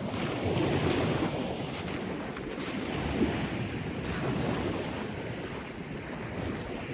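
Wind blowing across the microphone, an uneven low noise that swells and eases.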